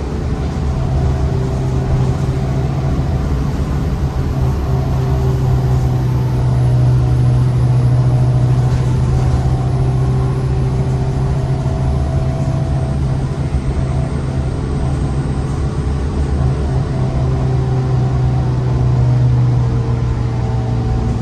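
2023 Gillig transit bus under way with its air-conditioning working hard: a steady low drone with a few higher tones that drift up and down in pitch, swelling slightly now and then.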